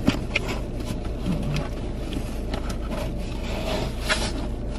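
Cardboard box being handled and folded shut, with flaps scraping and short clicks of cardboard, over a steady low rumble inside a car.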